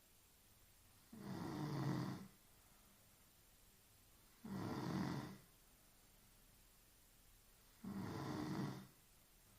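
A woman snoring in her sleep: three snores, each about a second long, coming roughly every three seconds, with quiet breathing between them.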